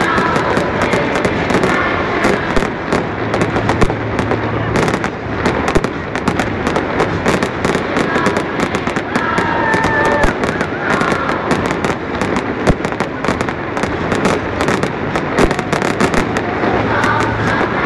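Fireworks show: a dense, irregular run of crackling pops and bangs from gold crackle shells.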